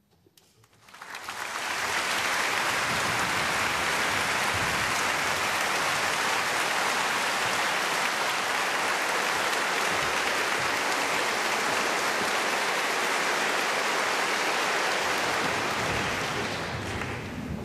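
Concert-hall audience applauding to greet the conductor's entrance, swelling about a second in, holding steady, and fading away near the end.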